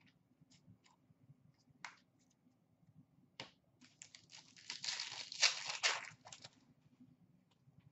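A 2011-12 Upper Deck Series 1 hockey card pack being torn open. Its wrapper tears and crinkles for about two and a half seconds, starting about four seconds in, after a few light clicks of cards being handled.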